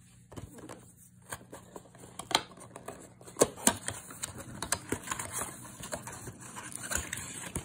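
Cardboard card box being handled and its end flap pried open by hand: scattered light taps, clicks and scrapes of fingers on cardboard, a few sharper clicks in the middle.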